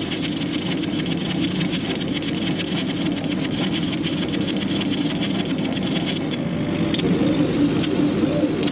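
Laser cutter making a cutting pass: a steady fan-like hum with fine rapid ticking, and from about six seconds in the gantry's stepper motors whine in short tones that rise and fall as the head changes direction.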